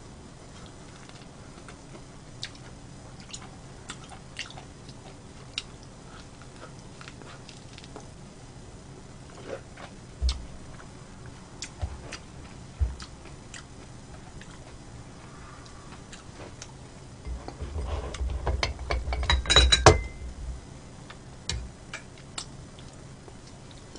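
Close-miked eating: quiet chewing with scattered small clicks of cutlery against dishes, a couple of soft thumps, and a busier run of knocks and clatter about eighteen to twenty seconds in.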